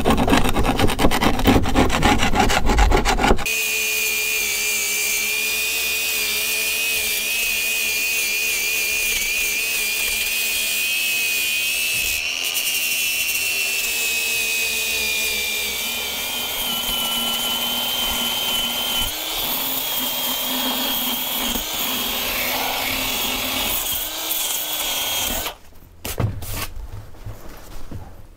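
Handheld angle grinder stripping old finish off a wooden boat frame, running with a steady whine that wavers as the disc is pressed on and shifts higher about halfway through. It stops a few seconds before the end. It is preceded in the first few seconds by rough rasping against the wood.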